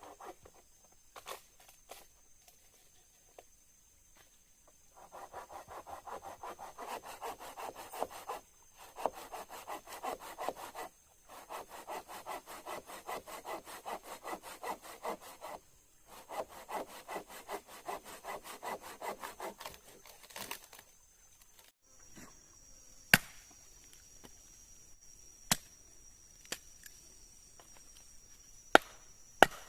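Hand saw cutting through wood in quick back-and-forth strokes, in four bouts with short pauses between them, stopping about two-thirds of the way through. A few isolated sharp knocks follow.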